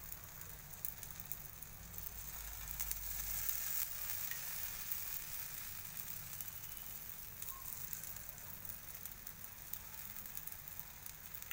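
Besan chilla batter sizzling and crackling on a hot iron tawa as oil is spooned around its edges, swelling a little about three seconds in.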